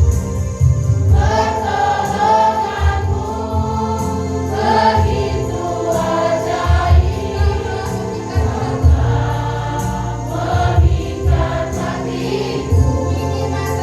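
Church choir singing a gospel worship song over instrumental accompaniment.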